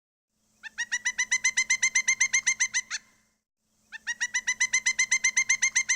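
Pileated woodpecker calling: two rapid runs of loud, evenly repeated notes, about seven a second, each run lasting about two seconds, with a pause of about a second between them.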